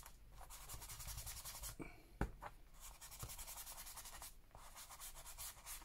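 Faint, quick scratchy rubbing strokes on paper, with one sharp tap a little over two seconds in.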